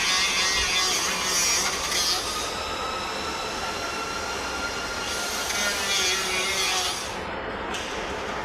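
Power tool running with a high whine over a hiss, louder for the first two seconds and again from about five to seven seconds in.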